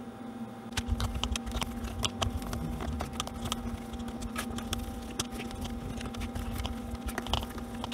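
Hands working on the plastic case of a fishfinder on a workbench: scattered small clicks and a low rubbing rumble as it is wiped down or unscrewed. A steady low hum runs underneath.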